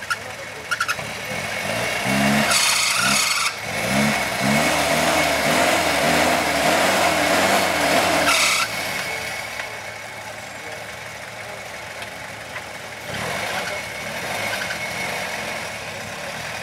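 Toyota Land Cruiser LJ70's engine revving up and down under load as the truck crawls over a steep off-road slope, with two short bursts of noise. About halfway through it drops back to a lower, steady run.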